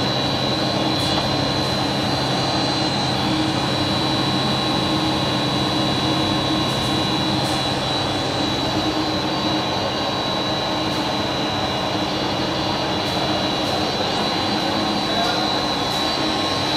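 45 mm LD blown film extrusion plant running: a steady mechanical drone with a constant high-pitched whine and a low hum from its motors and drives.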